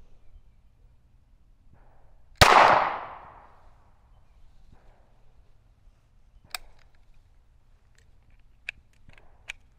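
A single shot from a SIG P320 Spectre Comp 9mm pistol about two and a half seconds in, with a short echoing tail. A few faint sharp clicks follow later.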